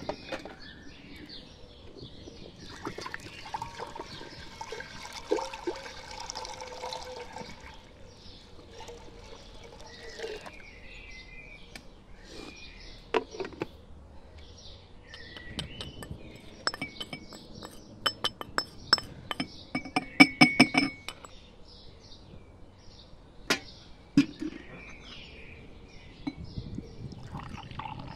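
A brass pestle striking in a brass mortar: a fast run of ringing metal clinks lasting about five seconds, a little past the middle, the loudest sound. Before it, a stretch of liquid pouring and a few knocks of pots and lids, with birds chirping faintly throughout.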